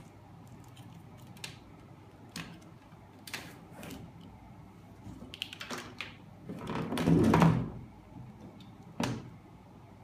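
Plastic-cased 12 V sealed lead-acid batteries being handled and set down on a tray: scattered light knocks and clicks, a louder scraping knock lasting about a second around seven seconds in, and one more knock near the end.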